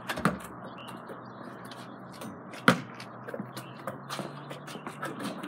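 A basketball bouncing during dribbling and play: a few separate sharp thuds, the loudest about two and a half seconds in, over a faint steady low hum.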